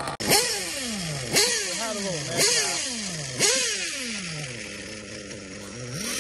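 Small nitro engine of a 1/8-scale RC car revved in four quick throttle blips about a second apart, each rev falling away in pitch back toward idle. A longer rev builds near the end.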